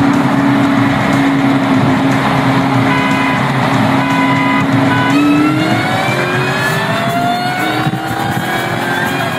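Supercharged 4.6-litre V8 of a 2003–04 Mustang SVT Cobra at wide-open throttle in a high-speed roll race, heard from inside the cabin over heavy wind and road noise. The engine note holds steady for about five seconds, then climbs steadily in pitch.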